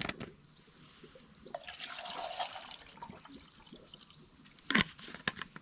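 Water poured from a plastic Nalgene bottle into a small metal camping pot, trickling and splashing, with a few light clinks and a sharp knock near the end.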